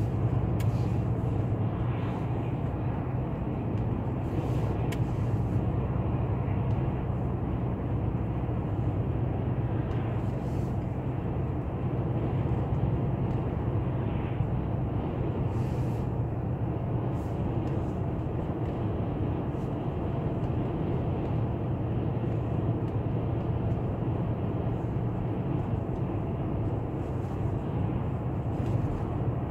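Steady low rumble of a car's road and engine noise at cruising speed, heard from inside the cabin.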